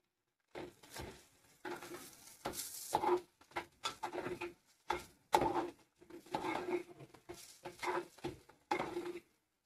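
A spoon stirring and scraping in a pressure cooker in quick, uneven strokes, with a low ring from the pot on each stroke, as washed moong dal is mixed into the spiced tempering.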